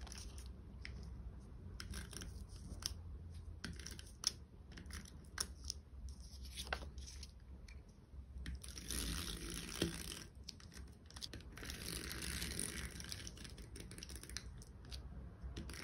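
Paper being handled on a desk with small taps and clicks, then a glue tape runner drawn along the back of a paper ticket, laying adhesive in two longer strokes about nine and twelve seconds in.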